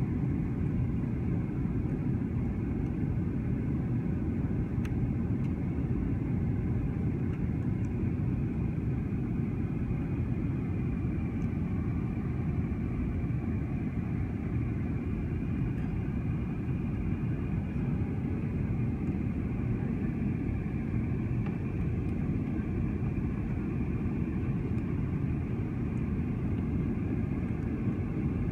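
Steady low rumble of a jet airliner's engines and airflow, heard inside the cabin during descent.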